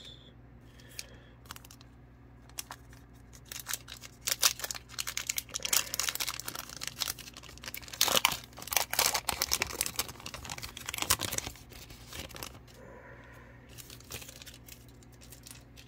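Shiny foil wrapper of a Donruss Optic football card pack crinkling and tearing as it is torn open by hand, a dense run of crackles for several seconds in the middle, with softer rustling before and after.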